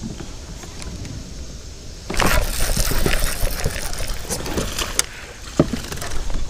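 A hooked largemouth bass splashing and thrashing at the surface, loud and rushing for a couple of seconds from about two seconds in, with a sharp splash or knock later on. Before that there are faint clicks from the baitcasting reel being wound.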